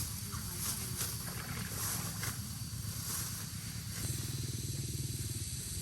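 A small engine running with a steady, pulsing rumble; about four seconds in it grows louder and its note changes.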